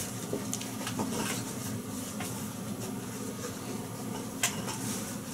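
Light clicks and knocks of spools of fishing line being handled, a few separate taps, over a steady low electrical hum.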